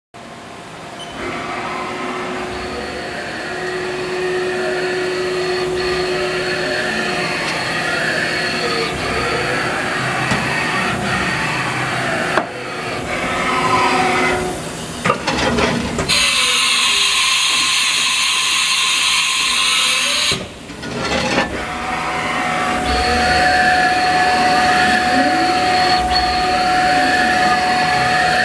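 Haas Mini Mill CNC vertical machining center running under power: motor whines that rise and fall in pitch over and over above a steady mechanical hum, with a loud hiss for about four seconds in the middle.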